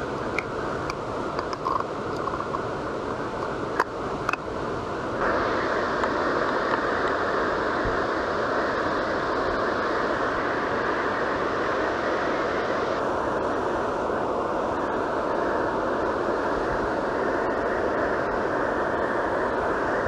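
Steady rushing roar of a tall waterfall, Kynrem Falls, with no pitched tone in it. It grows louder and brighter about five seconds in, and a few faint clicks sound in the first seconds.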